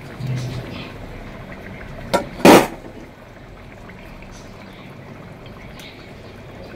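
Liquid sounds from a pot of mutton broth over a steady low background, with one short, loud knock about two and a half seconds in.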